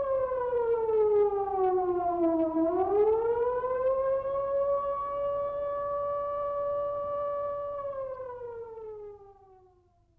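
A single siren-like wailing tone. It slides down in pitch over the first two and a half seconds, swings back up and holds steady, then falls away again and fades out near the end.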